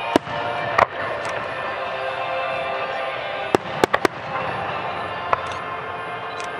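Aerial firework shells bursting in the sky: about half a dozen sharp bangs, two close together near the start and a quick cluster of three a little past halfway, with one more near the end. Music plays underneath throughout.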